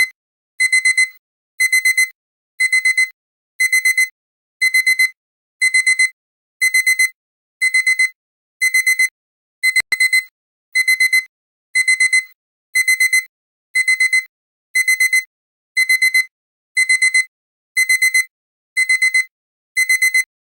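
Digital alarm-clock beeping: quick groups of four high beeps, about one group a second, repeating steadily. This is the countdown timer's alarm sounding at zero.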